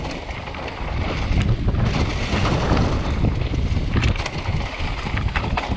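Mountain bike descending fast on a leaf-covered dirt trail: heavy wind noise on the microphone over rolling tyre noise, with a few sharp rattling knocks from the bike over bumps near the end.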